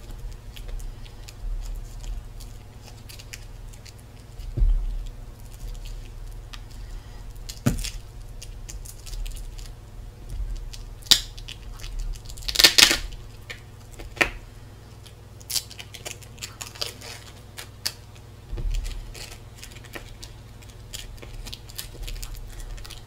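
Card mould boxes being peeled and torn off set silicone moulds by hand: scattered rustles, small knocks and clicks, with a louder tearing rip a little before halfway through.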